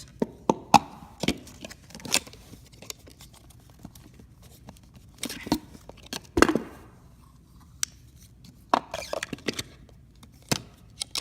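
Handling noise of a camera lens and its case: scattered clicks and knocks with brief rustles, the loudest knock about six and a half seconds in.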